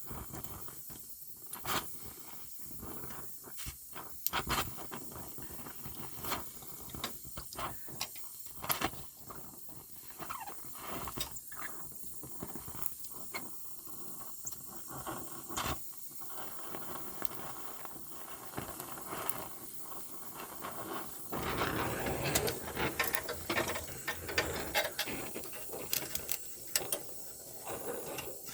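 Welding on a car body mount: short spot welds and scattered crackles and clicks, then a longer steady crackling weld from about two-thirds of the way in, stopping just before the end.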